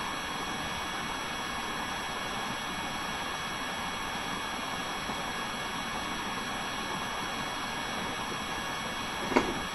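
Steady recording hiss with a few faint steady whining tones, the room tone of a quiet classroom. One short, sharp sound comes near the end.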